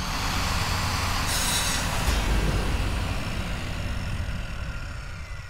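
Logo-reveal sound effect: a deep rumbling swell with a short sharp hiss about a second and a half in, then slowly dying away.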